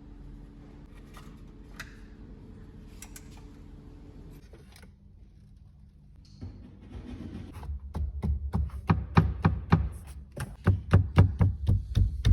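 A low steady hum with a few light clicks, then from about halfway a fast, loud run of knocks, about three or four a second, on car interior trim: the dashboard panel is being knocked on to find where it rattles.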